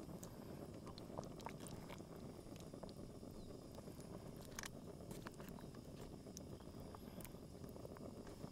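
Faint wet pops and small clicks of beef stew simmering in a billy pot while a wooden spoon stirs it, over a steady low rush.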